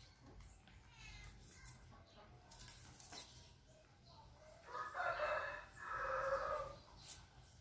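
A rooster crowing once, a single two-part call lasting about two seconds and starting a little past the middle.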